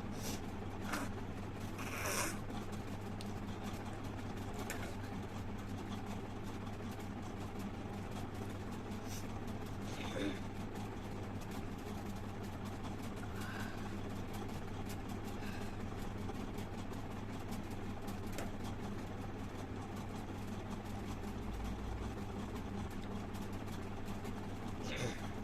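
A woman spitting forcefully into a plastic glass: a handful of short spits spaced several seconds apart, over a steady low hum.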